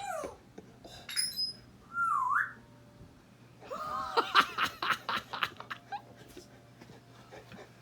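Pet parrot whistling and chattering: a falling whistle at the start, a short swooping whistle that dips and rises about two seconds in, then a quick run of squawky chatter with clicks from about four to five and a half seconds in.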